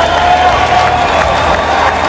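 Loud, dense crowd noise of many diners talking and calling out at once, with music running underneath.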